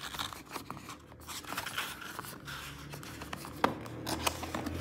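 Packaging of a camera box being handled as it is unpacked: faint rustling and scraping with small clicks, and one sharper click about three-quarters of the way through.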